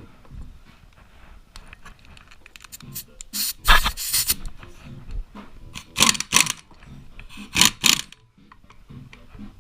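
Impact wrench fired in several short bursts to rip a nut off the motorcycle engine's clutch shaft. The longest burst comes about four seconds in, and two shorter ones follow.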